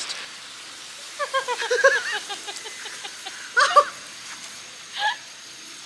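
A man's voice laughing and whooping in short bursts while riding a rope swing: a quick run of laughs about a second in, a loud yelp a little past the middle and a short one near the end.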